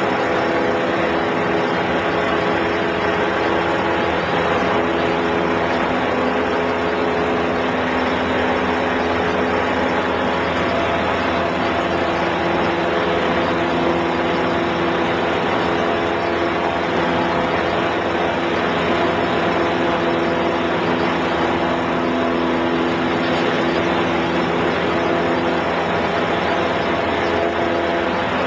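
Piper Super Cub floatplane's piston engine and propeller running, a loud, even drone with small shifts in pitch.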